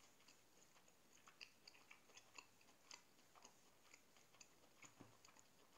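Faint chewing, with soft irregular mouth clicks of a person eating.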